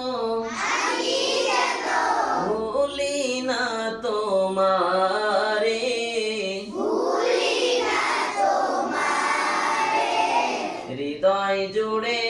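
Unaccompanied Bengali devotional song sung solo by a young man into a microphone, in long held phrases that waver and glide in pitch.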